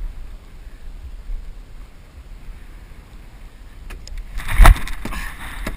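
Wind buffeting a microphone inside a waterproof camera housing, a low muffled rumble, then a loud noisy burst with a thump about four and a half seconds in.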